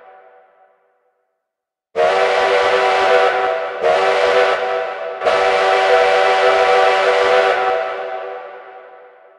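Steam train whistle blowing three blasts, long, short, long, each a steady chord of several tones over a hiss; the last blast fades away slowly over about two seconds. The dying end of an earlier whistle blast fades out in the first second.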